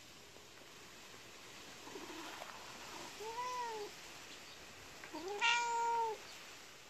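Domestic cat meowing twice: a short meow that rises and falls about three seconds in, then a louder, longer one that rises and holds about five seconds in.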